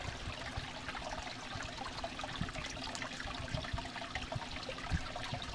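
Koi pond water trickling and splashing steadily, from the pump-fed waterfall and the air stones bubbling at the surface.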